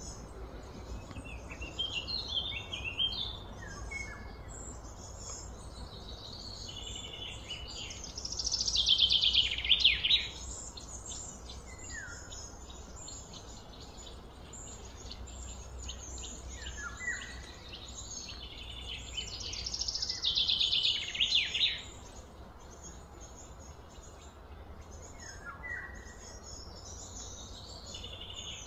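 Birds calling outdoors: scattered chirps and short falling notes, with two loud, rapid trills about eight and twenty seconds in, over a steady low background rumble.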